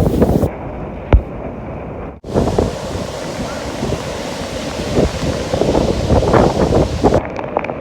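Hurricane-force wind gusting hard against the microphone, buffeting and rumbling over the rush of surf. A sharp knock comes about a second in, and the sound cuts out for an instant just after two seconds.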